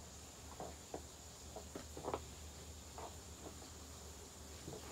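Quiet background with a steady high-pitched tone, a low hum and a few faint scattered ticks.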